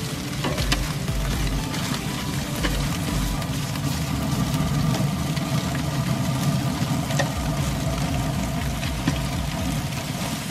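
Background music over a steady low hum from the running pellet grill, with a few short clicks and scrapes as a spatula stirs pumpkin seeds on foil-lined trays.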